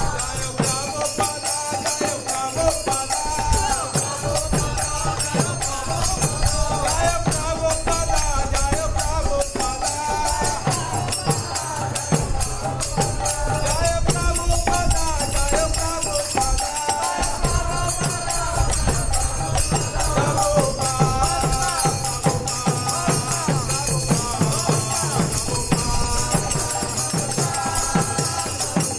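Devotional kirtan: a lead singer and a group of devotees chanting over karatalas (small brass hand cymbals) clashing in a steady rhythm, with a mridanga drum beating underneath.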